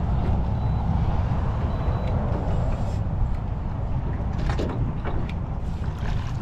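Steady low rumble of interstate highway traffic running close by.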